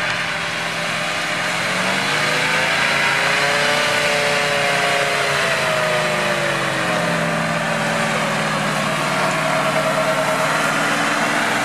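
GAZ-66 army truck engine pulling through snow: the revs rise a couple of seconds in, ease off again, then settle to a steady run as the truck comes up close.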